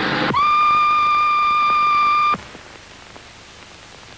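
Steam locomotive whistle giving one steady blast of about two seconds. It slides up briefly into pitch at the start and cuts off sharply, leaving a faint hiss with a few clicks.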